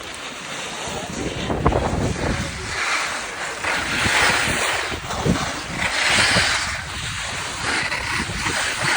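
Wind buffeting the microphone while skiing downhill, with two long swells of hiss from skis sliding and scraping across the snow.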